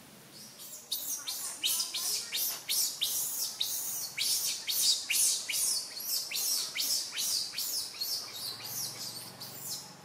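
A bird calling a rapid series of short, high-pitched chirps, about three a second, starting about a second in and keeping up steadily.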